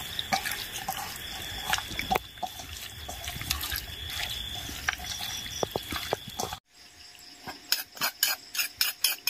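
Wet squishing and squelching of bare hands kneading marinated meat with sliced onion and spices in a steel bowl. After an abrupt cut near the end comes a quick run of sharp clicks.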